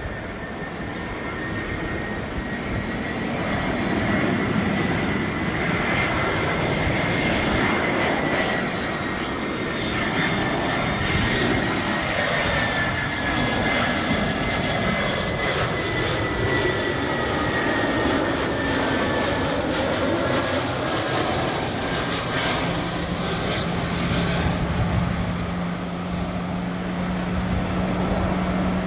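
Airbus A320 jet airliner passing low on landing approach: the engine noise builds over the first few seconds, then a steady rush with a high whine that slowly falls in pitch. A steady low hum joins near the end.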